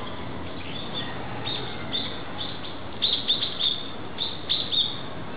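Short, high-pitched chirps from a small animal: a few single ones, then two quick clusters of them, about three seconds in and again near the end.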